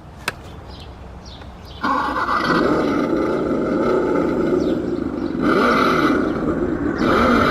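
A click, then about two seconds in a red Corvette Power Wheels ride-on toy car starts a loud, steady mechanical running sound, which shifts a couple of times as the toy is worked.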